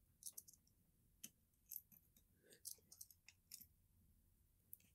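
Near silence with a few faint, scattered clicks: lead shot pellets and metal calipers being handled while the pellets are measured one at a time.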